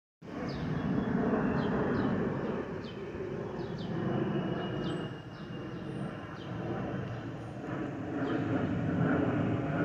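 Airbus A320neo's Pratt & Whitney PW1100G geared turbofans passing overhead: a steady jet rumble that swells and eases a little. Faint short high chirps repeat through the first half.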